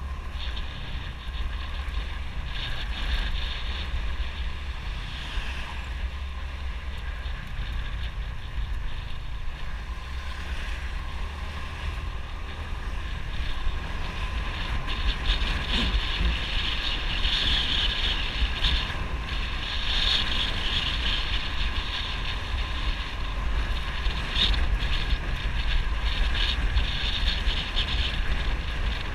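Wind rushing over the microphone of a moving motorbike, with a steady low engine and road rumble underneath; it grows louder about halfway through.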